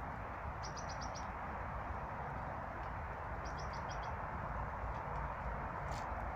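Small songbirds chirping: two quick runs of four or five short, high notes, about a second in and again near the four-second mark, over a steady rushing background noise.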